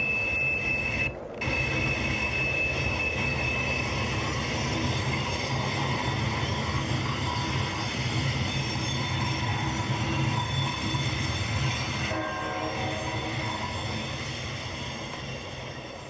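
Dubbed-in sound effect of a full-size freight train passing: a steady rumble of locomotive and rolling railcars, with a high steady tone over the first few seconds. There is a brief break about a second in, and the sound fades over the last few seconds.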